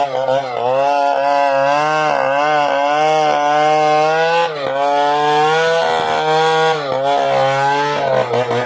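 Chainsaw engine running under load while cutting into an ironwood trunk. Its pitch wavers up and down, with a couple of brief dips.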